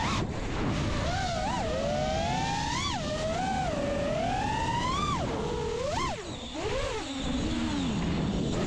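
FPV freestyle quadcopter's brushless motors and propellers whining, the pitch sweeping up and down with the throttle, over wind rush on the onboard camera. About six seconds in the pitch drops sharply and the sound briefly dips, and near the end it sinks low.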